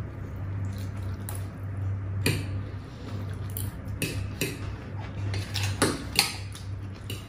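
Metal forks clinking and scraping on ceramic plates as two people eat noodles, with several sharp clinks spread through.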